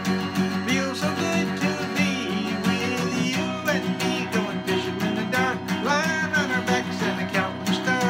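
Acoustic guitar strummed in a steady rhythm, with a man's voice singing along at times.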